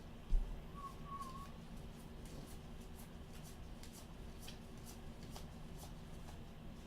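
Faint handling of baseball trading cards, with light clicks and ticks as the cards are flipped through one by one. A soft thump comes just after the start, and a brief high squeak about a second in.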